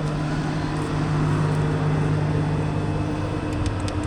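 Swather engine idling steadily, an even mechanical hum, with a few faint clicks near the end.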